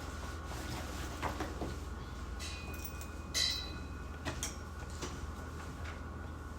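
Study cafe room ambience: a steady low hum with scattered small knocks and taps from people at their desks. The loudest is a clink with a short ring about three and a half seconds in.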